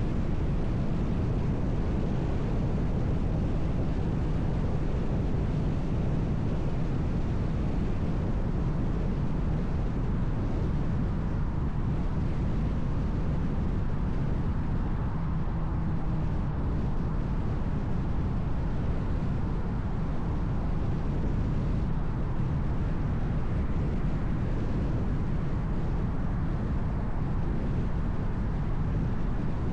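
Steady road noise of a car cruising: a continuous low rumble of tyres and engine, with no change in level.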